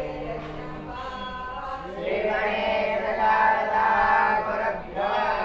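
A group of boys at a Vedic school chanting scriptural verses in unison, their voices holding long pitched notes. The chant gets louder about two seconds in.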